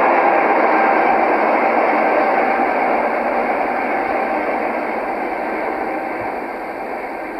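Steady rushing noise like radio static, slowly fading.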